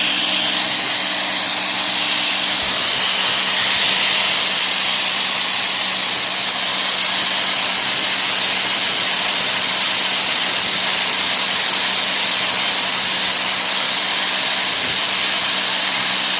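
Power grinder running steadily with a high whine and hiss as it grinds a small metal component.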